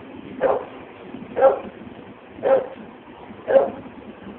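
A dog barking steadily, one bark about every second.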